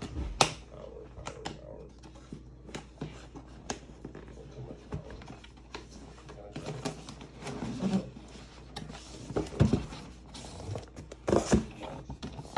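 Cardboard retail packaging being handled: a box sliding out of its sleeve and a lid lifted off, with scraping and rustling and a few sharp knocks of cardboard against the desk, the loudest about half a second, ten and eleven and a half seconds in.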